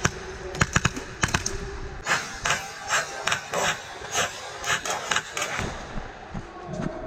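Airsoft guns firing: quick bursts of sharp clicking shots in the first second and a half, then a run of separate snaps, two or three a second, until about five and a half seconds in.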